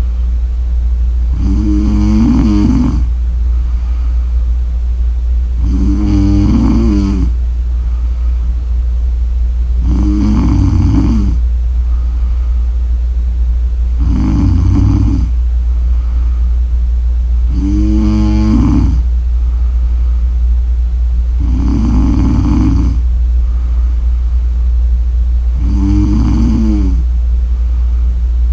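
A woman snoring in her sleep: seven pitched snores, each about a second long, coming about every four seconds. A steady low hum runs underneath.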